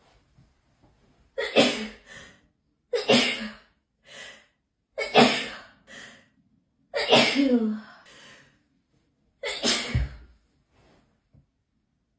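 A person sneezing five times in a row, about every two seconds, in a hay-fever sneezing fit. Each loud sneeze is followed by a shorter, fainter burst.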